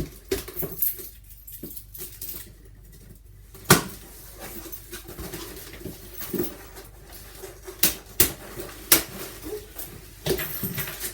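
Cardboard box and packaging being handled and opened: rustling with scattered sharp knocks and crackles, the loudest about four seconds in and again near nine seconds.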